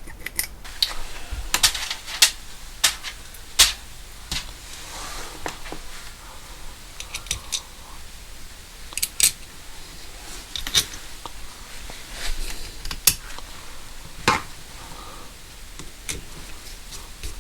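Irregular light clicks and taps of small metal parts and hand tools being handled on a workbench, with a few sharper knocks, as a freshly reassembled motorcycle carburettor is worked on.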